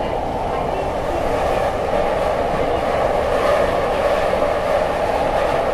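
Running noise heard inside a Tokyo Metro 7000 series train car in motion: a steady rumble of the train on the rails, growing a little louder about two seconds in.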